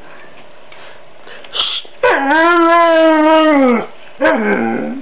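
Young Siberian husky "talking": a short huff about a second and a half in, then a loud, drawn-out howl of nearly two seconds that holds its pitch and drops away at the end, followed by a shorter, lower howl near the end.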